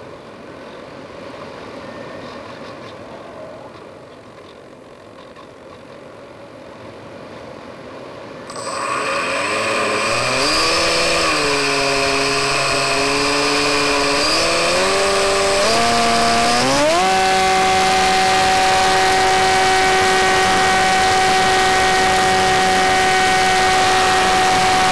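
Electric motor and propeller of a Skywalker FPV plane. At first there is only an even rush of air while it glides with the motor nearly idle. About a third of the way in the motor starts, and its whine climbs in several steps to a steady high-pitched drone at high throttle.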